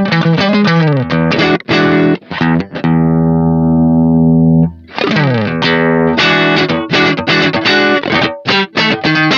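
Electric guitar played through a Behringer SF300 Super Fuzz pedal: quick fuzzed notes, then one note held ringing for about two seconds mid-way. After it cuts off there is a slide down in pitch and another run of quick notes.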